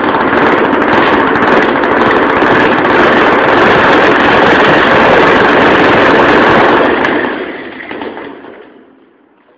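SAW160 concrete saw running loudly with a rough, steady mechanical noise, which dies away over about two seconds near the end.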